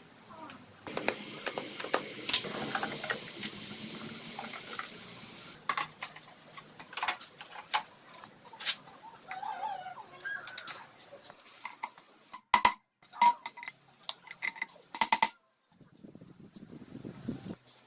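Metal parts and hand tools clinking and knocking in a workshop, with a steady hiss for the first several seconds and a cluster of sharp knocks in the second half.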